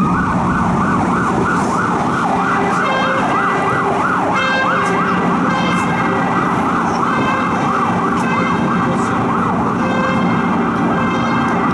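Emergency vehicle siren sweeping rapidly up and down several times a second after winding up. A second, higher tone comes and goes in short bursts.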